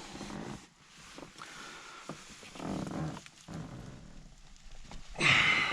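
A person's low, drawn-out straining grunts, repeated several times while heaving on a wrench to break a seized steering-wheel nut loose. A sharper, louder noise comes near the end.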